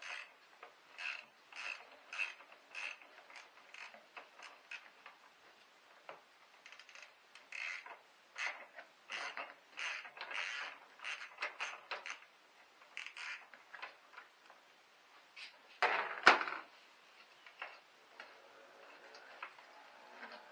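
Socket ratchet clicking as it is worked in short strokes on the battery fittings, about two clicks a second at first, then in quicker, uneven runs. A louder metallic clunk about sixteen seconds in.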